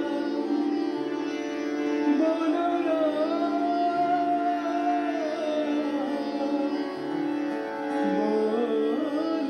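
Hindustani devotional music in Raag Mishra Kirwani: a male voice sings a long, wordless, gliding melodic line over sustained harmonium and tanpura drone, with soft tabla strokes.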